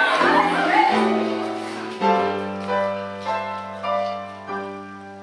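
A group of voices singing a musical number, the singing ending about a second in, followed by piano chords struck about every half-second over a held bass note, slowly fading.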